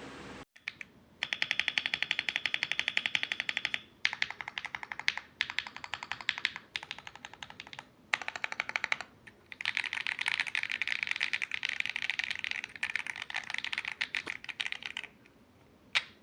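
Fast typing on a mechanical keyboard: rapid runs of key clicks with a few short pauses between bursts.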